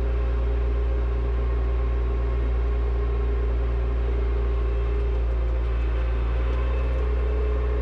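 Front-loader tractor engine running steadily at a constant speed, a low hum with no revving.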